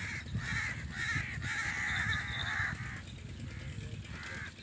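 Crows cawing in a run of harsh, repeated calls, falling quiet about three seconds in and calling once more near the end, over a steady low rumble.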